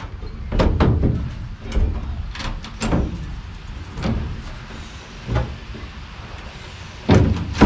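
A window frame being pushed and knocked into the cut-out opening of a Sprinter T1N van's sheet-metal rear door: a series of irregular knocks and thuds, the door panel booming with each, loudest near the end.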